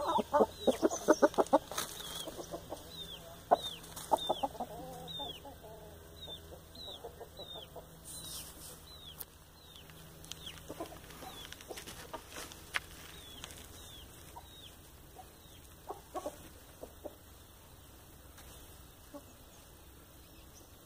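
Chickens clucking, loudest in a rapid run over the first couple of seconds, then sparser and quieter. Through the first half a chick gives high, falling peeps about twice a second.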